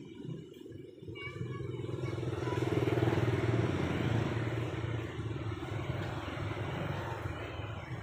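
A motor vehicle passing by: its engine hum grows from about a second in, is loudest about three seconds in, then slowly fades.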